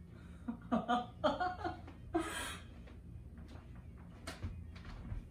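A woman's voice laughing in short quick 'ha' pulses, then a breathy rush of air about two seconds in, followed by a few faint taps.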